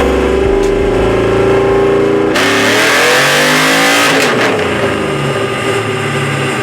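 A 6.0-litre V8 engine with cathedral-port heads idling, then revved sharply about two and a half seconds in, the pitch climbing for a second or so before dropping back toward idle.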